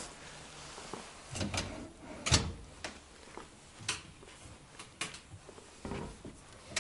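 Wooden desk drawers and a hinged cabinet door being opened and shut by hand: a series of short wooden knocks and clicks, the loudest about two and a half seconds in.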